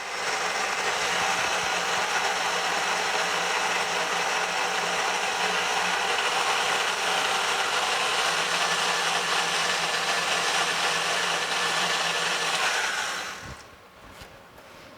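Electric kitchen mixer running steadily on low speed, beating milk into instant pudding mix in a bowl, then switching off near the end.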